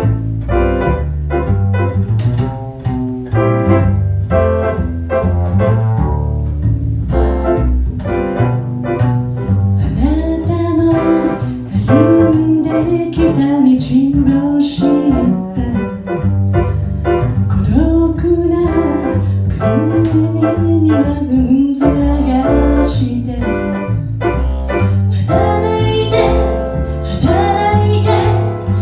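Piano and bass playing a live song, with a woman singing the melody over them from about ten seconds in.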